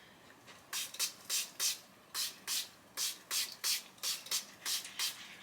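Handheld spray bottle spritzing water onto a curly wig, a quick run of short hissing sprays about three a second.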